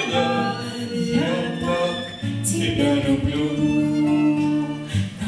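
A man and two women singing a slow song together in harmony, with long held notes, accompanied by a nylon-string acoustic guitar.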